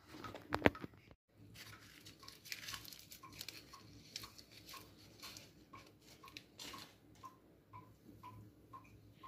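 Metal spoon scraping and pressing through a dry flour and cornstarch seasoning mix in a plastic tub, with soft crunching and scraping. A faint regular ticking runs underneath, about two to three ticks a second, and a couple of sharp clicks come in the first second.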